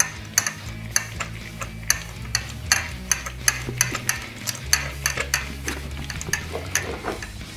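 Hand ratchet clicking in short, uneven runs, a few sharp ticks a second, as the spark plugs are turned loose and backed out of the V8's heads.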